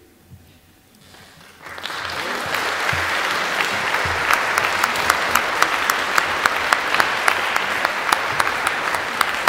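An audience breaking into applause after a short quiet moment, about two seconds in, then clapping steadily with single sharp claps standing out.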